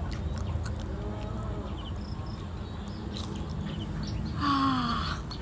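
A person chewing food, with small mouth clicks, and a short vocal sound falling in pitch near the end.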